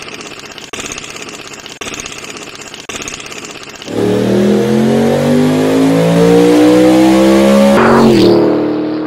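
A rushing noise broken about once a second. Then, about four seconds in, a car engine starts accelerating hard, its pitch climbing steadily. Near the end the pitch drops sharply and settles.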